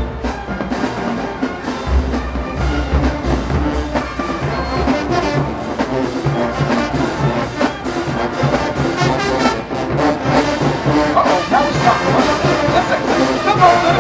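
Marching band playing: a full brass section of trombones and trumpets over a steady drum-line beat, the horns growing louder near the end.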